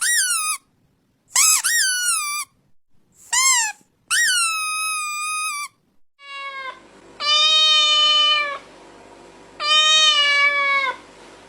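Domestic cat meowing repeatedly: five short meows, each rising then falling in pitch, separated by silence. From about six seconds in, a short meow and then two longer, drawn-out meows over a faint steady background noise.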